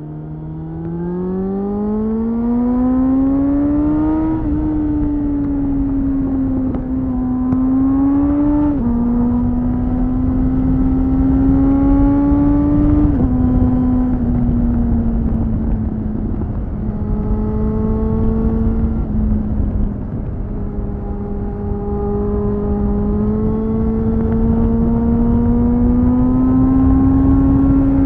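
2001 Suzuki GSF600 Bandit's inline-four engine through a BOS slip-on exhaust, accelerating from about a second in and changing up through the gears, its pitch dropping suddenly several times over the first dozen seconds. It then holds a steady cruise, rising slowly near the end, over wind noise on the microphone.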